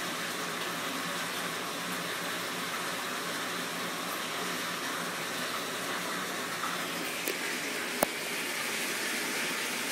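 Shower running in a small bathroom: a steady hiss of falling water, with a sharp click about eight seconds in.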